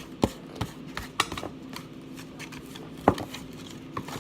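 Spoons clicking and scraping against mixing dishes as slime mixture is stirred, in irregular taps with a sharper knock about three seconds in.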